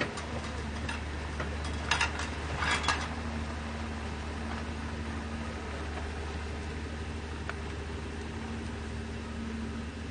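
Steady low hum with a few brief clinks of metal cookware, about two and three seconds in, as a stainless pot and steamer are handled on a portable stove.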